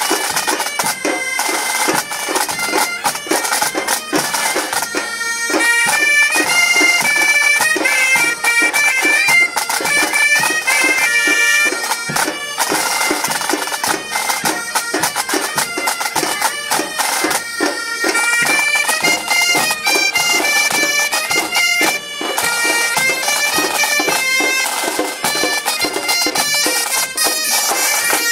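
Bagad (Breton pipe band) playing a lively tune: bagpipes carrying a moving melody over a steady drone, with drumming throughout.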